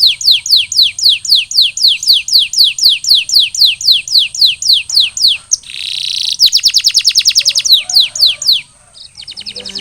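Canary singing: a long run of repeated falling whistled notes, about four a second, broken about six seconds in by a short harsh rasping note, then faster phrases and, after a brief pause near the end, a rapid trill.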